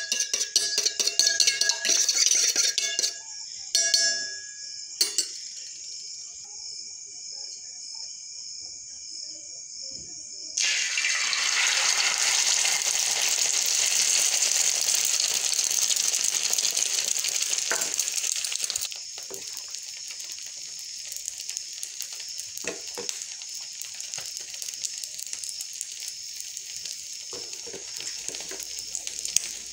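Eggs beaten by hand in a steel bowl: fast rhythmic clinking for the first few seconds. About ten seconds in, the beaten eggs hit hot oil in a pan and sizzle loudly; a little before twenty seconds in the sizzle settles to a quieter steady frying with occasional clicks.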